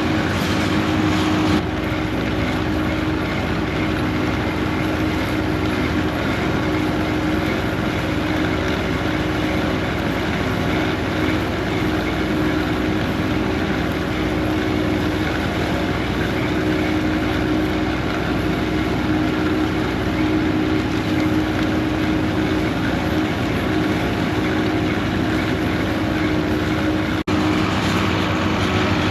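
Steady motor drone with a strong constant hum that holds an even pitch and level throughout, with slight jumps in the sound about a second and a half in and near the end.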